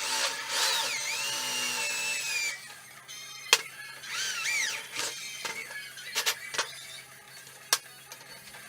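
High-pitched squealing of metal being worked with a power drill, the pitch sliding up and down, with several sharp clicks and knocks.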